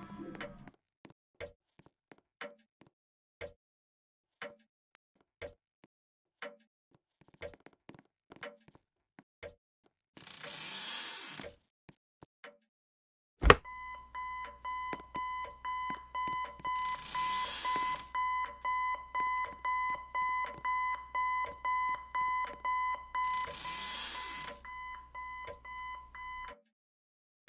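Ticking, roughly one click a second. Then a sharp click about halfway through, and an electronic alarm starts beeping at a high steady pitch, about two beeps a second, until it cuts off near the end. Short hissy bursts come in three times, once before the alarm and twice during it.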